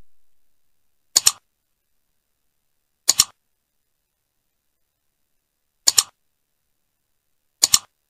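Mouse-click sound effects of a subscribe-button animation: four quick double clicks, about two seconds apart, with silence between them.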